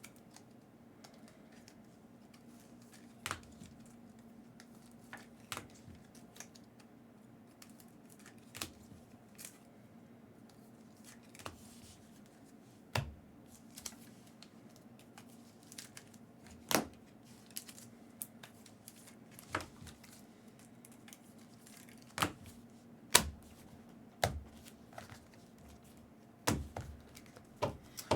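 Trading cards being handled and sorted on a table: irregular light clicks and taps, more than a dozen, spread over a faint steady hum.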